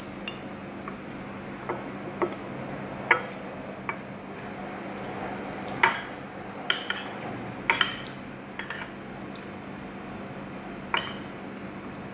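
Metal spoon and fork clinking and scraping against a plate while eating: about ten short, sharp clinks at uneven intervals, over a steady low hum.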